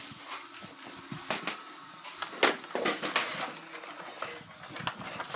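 Nerf blasters firing a few scattered shots: short sharp pops and knocks, the loudest about two and a half and three seconds in.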